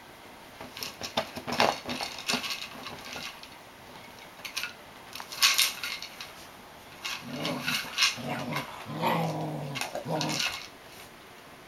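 Cocker spaniel knocking a plastic Tug-a-Jug treat toy about, giving scattered clicks and clatters, then growling in about five short bursts in the second half. The growls come from frustration that the treats won't come out.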